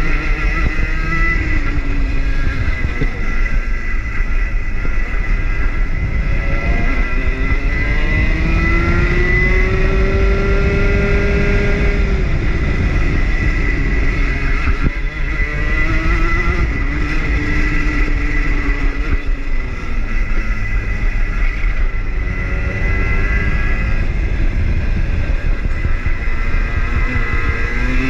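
Rotax hire kart's 125 cc two-stroke engine, heard from the driver's seat, revving up along the straights and dropping back for the corners several times, over a constant low rumble.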